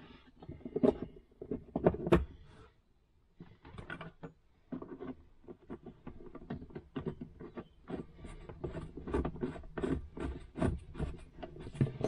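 Plastic outer cover of a Chinese diesel air heater being pressed back onto the unit by hand: a run of irregular plastic clicks, taps and knocks, with a short quiet gap about three seconds in, then dense rapid tapping.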